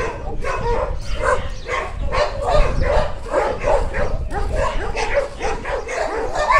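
Dogs barking and yipping as they play, in a dense, unbroken run of short overlapping calls.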